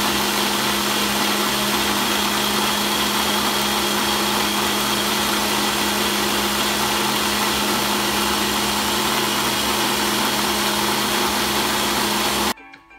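Personal bullet-style blender running at full speed, blending a smoothie in its inverted cup: a loud, steady motor noise with a hum that stops suddenly shortly before the end.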